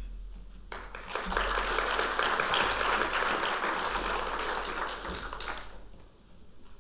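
Audience applauding, starting just under a second in and dying away near the end.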